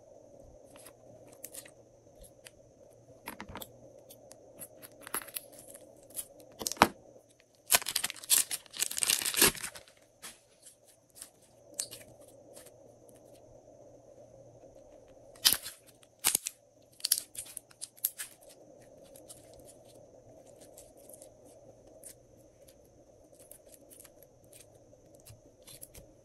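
Hands working glossy slime, giving off scattered sticky clicks and crackles, with a dense run of crackling about eight seconds in and a few sharp snaps around a quarter-minute in.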